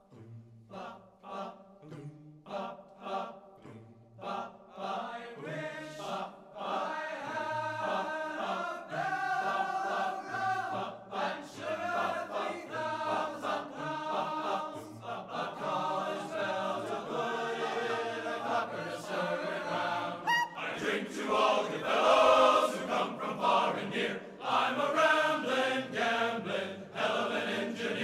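Background music with a choir singing: short separate notes at first, filling out after a few seconds and getting louder about twenty seconds in.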